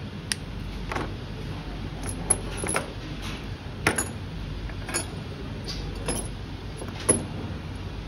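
Irregular sharp clicks and light metal clinks of small hand tools, wire cutters and tweezers, being worked and set down on a workbench, over a steady low hum.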